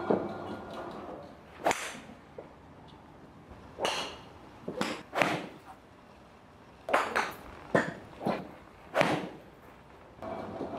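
Golf clubs striking balls: about ten sharp cracks at irregular intervals, the first right at the start.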